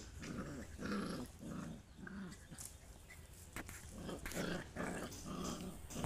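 Puppies play-fighting, giving short growls over and over, with a few sharp scuffling clicks from paws and bodies on the floor.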